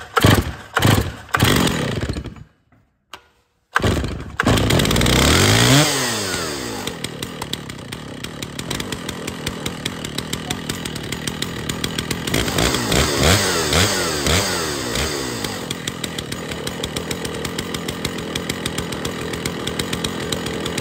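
Stihl MS 650 two-stroke chainsaw being pull-started: a few hard pulls of the starter rope in the first two seconds, then a short pause. The engine catches about four seconds in, is revved up and back, idles, is revved again around the middle, and settles back to idle. It is running properly after its clutch was rebuilt with new clutch springs.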